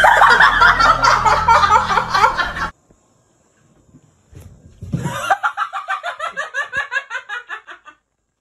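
Laughter: a loud burst over a low hum, then after a short pause a person laughing in quick, rhythmic pulses, about five a second, that fade out.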